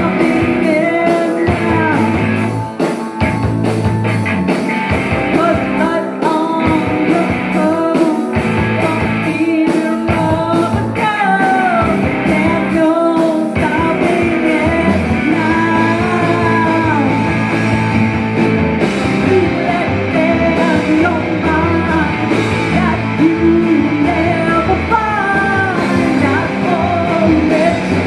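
Live rock band playing loudly: a woman sings lead over electric guitar, bass guitar, drums and keyboard.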